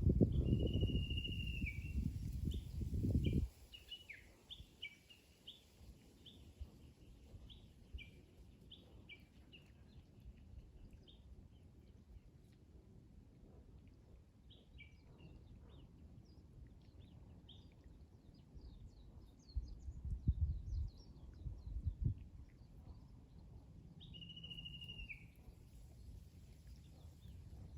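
Japanese bush warbler (uguisu) singing: a long whistled note that drops at its end, about a second in and again near the end, with many short chirped notes between. A low rumble, like wind on the microphone, covers the first few seconds and returns briefly past the middle.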